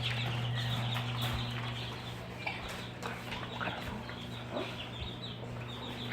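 A flock of young chicks peeping together: a dense, steady chatter of short high cheeps over a constant low hum.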